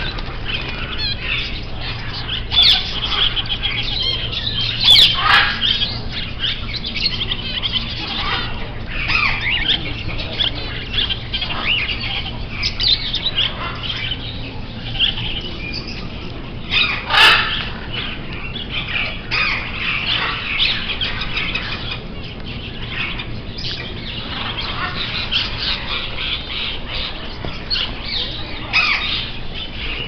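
A roomful of caged pet birds chirping and calling over one another, with louder sharp squawks about five seconds in and again around seventeen seconds.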